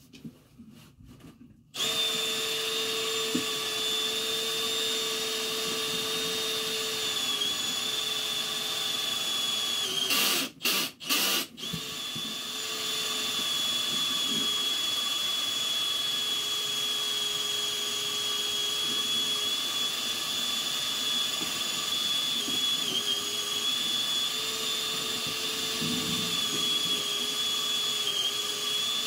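Electric drain-cleaning machine starting up about two seconds in and running steadily with a constant high whine, spinning its cable down a sewer line to clear tree roots. About ten seconds in it cuts out and restarts three times in quick succession, then runs on.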